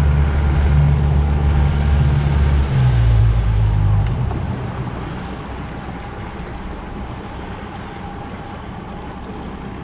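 A 75 hp Yamaha outboard runs steadily as the boat moves. About three seconds in it is throttled back, and about a second later it drops away. That leaves the hiss of wind and water as the skiff slows to a drift.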